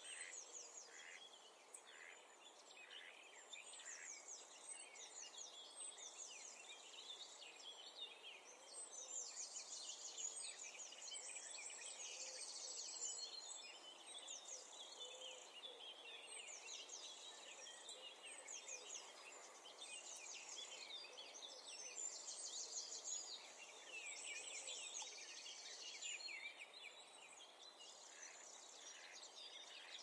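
A faint chorus of several songbirds singing at once, with overlapping chirps, trills and rapid runs of repeated high notes.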